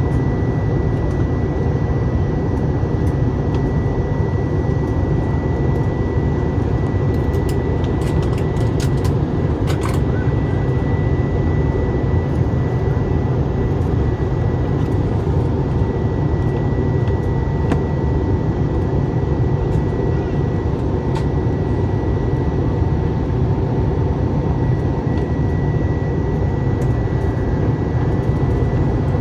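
Steady cabin noise inside an Airbus A321 airliner in descent: a deep, even rush of airflow and engine drone with a thin steady whine above it.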